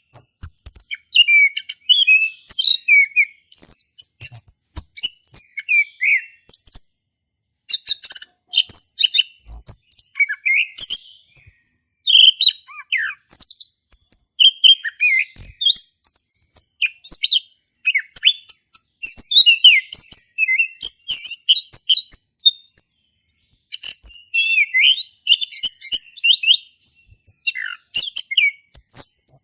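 Male chestnut-capped thrush singing a long, fast, varied song of whistled and chattering notes, with a brief pause about seven seconds in.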